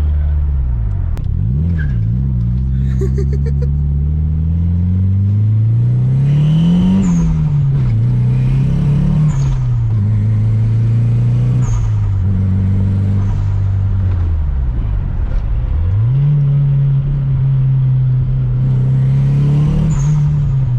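Nissan 240SX's SR20 four-cylinder engine under way. The engine note climbs and drops several times as the car accelerates and shifts gears.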